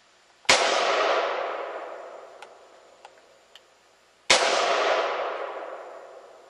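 Colt Match Target M4A3 semi-automatic rifle fired twice, two single shots about four seconds apart, each followed by a long echo that dies away over about two seconds.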